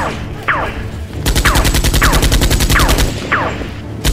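Dubbed machine-gun sound effect: short bursts near the start, then a long rapid burst of shots at about ten a second from about a second in to three seconds. About five falling whistles, like bullet ricochets, are laid over the shots.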